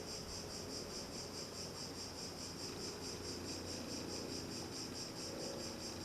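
Crickets chirping steadily in the background, a high, evenly pulsing trill, with a faint low hum beneath.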